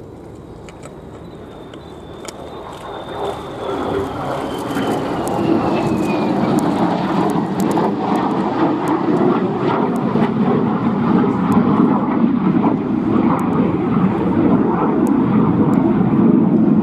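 Lockheed F-35B Lightning II's single F135 turbofan jet engine in a flying display: the roar builds over the first few seconds into a loud, rough rumble, with a faint high whine falling in pitch at the start. It stops suddenly at the end.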